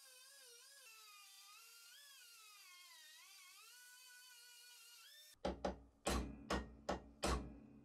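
Rotary tool with a grinding stone whining as it grinds down a rivet head, its pitch sagging and recovering as it is pressed into the steel. About five seconds in this gives way to six sharp, ringing hammer blows on a steel punch set on the ground-down rivet, driving the rivet out.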